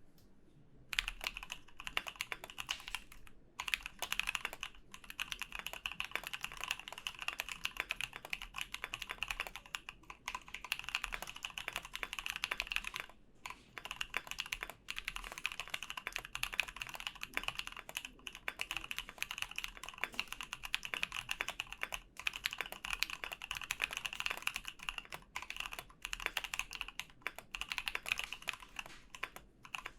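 Continuous fast typing on a KBD75v3 mechanical keyboard fitted with lubed and filmed C3 Kiwi tactile switches: a dense run of keystrokes starting about a second in, broken by a few short pauses.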